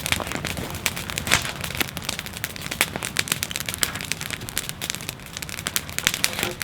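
Wood fire crackling, with a dense, irregular run of sharp pops and snaps.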